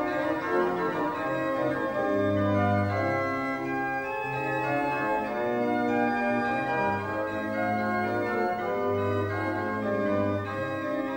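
Organ music: slow, sustained chords over a bass line of long held notes.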